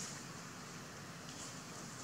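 Steady outdoor background hiss with faint brief rustles, one at the start and another about a second and a half in.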